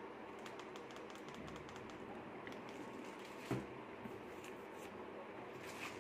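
Faint, scattered clicks of TV remote control buttons being pressed against low room noise, with one short thump about three and a half seconds in.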